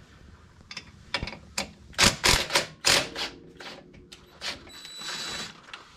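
Tools on the bolts of a Polaris RZR Pro XP primary clutch cover plate: a run of sharp metallic clicks and knocks, loudest about two to three seconds in. A steady hum follows for about a second and a half, then a hiss.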